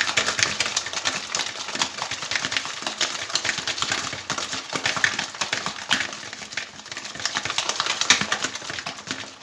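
Electric hand mixer beating eggs with sugar in a bowl: a steady motor sound with a dense clatter of the beaters. The eggs are being whipped until the mixture turns pale.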